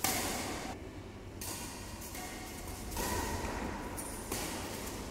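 Badminton rally: rackets striking a shuttlecock about four times, roughly a second and a half apart, each sharp hit echoing briefly in a large hall.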